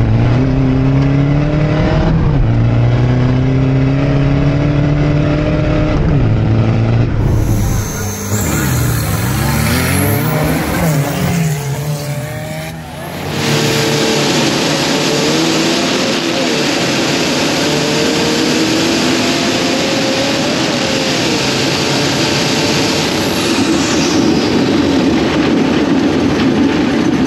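Engine of a turbo-diesel off-road drag truck heard from inside the cab. It revs with its pitch moving up and down, dips briefly about 13 seconds in, then runs loud at full throttle with its pitch climbing.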